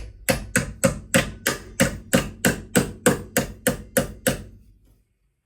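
Hammer blows on a bent steel chassis bracket, struck in a quick, steady run of about four blows a second to straighten it, stopping about four and a half seconds in.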